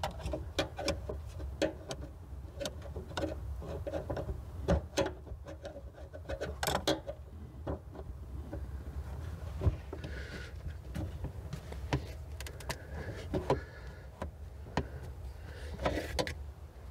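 Scattered clicks, taps and knocks of hand tools working at the mounting of a trunk lift support strut, irregular and uneven, over a steady low hum.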